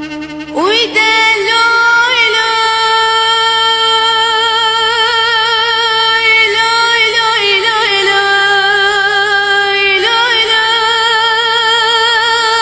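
A woman's voice singing long, held notes with a wavering vibrato, starting about half a second in; the melody dips lower midway and climbs back near the end.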